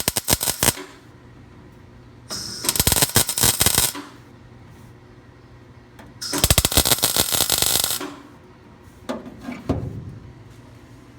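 Craftsman MIG welder tacking a thin 20-gauge sheet-metal patch panel: crackling arc in short bursts, one ending under a second in, two more of one and a half to two seconds, and a shorter sputter near the end. It is set to its lowest voltage to avoid blow-through, yet it is burning through the thin old metal.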